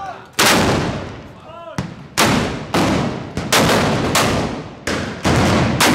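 Black-powder arquebuses fired with blank charges, about seven loud shots at irregular intervals, each leaving a long echo in the street. Shouting voices are heard faintly between shots.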